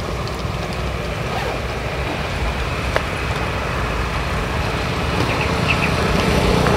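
Small motorcycle engine approaching along the road, growing louder over the last couple of seconds, over a steady low rumble.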